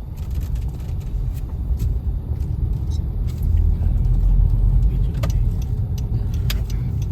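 Low, steady road and engine rumble of a car heard from inside the cabin while driving slowly, with a few scattered light clicks.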